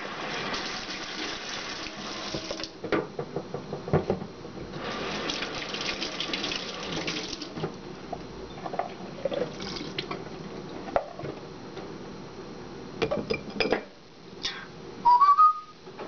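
Kitchen tap running into a stainless-steel sink in two spells, with dishes knocking and clinking between and after. Near the end, a short whistle rising then falling from the Congo African grey parrot.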